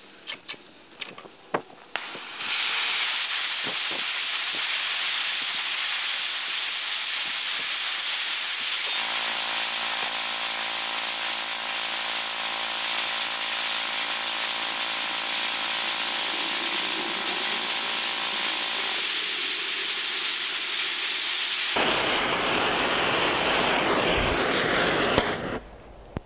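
A few clicks and knocks as the cast-iron part is handled in the vise, then about two seconds in an oxy-fuel torch flame starts with a loud, steady hiss as it heats the cast iron for brazing. The hiss changes character near the end and cuts off with a brief sharp sound as the torch is shut off.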